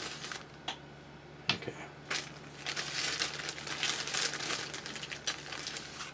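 Small 3D-printed plastic parts being handled and sorted by hand: irregular rustling and crinkling with a few light clicks of plastic pieces knocking together.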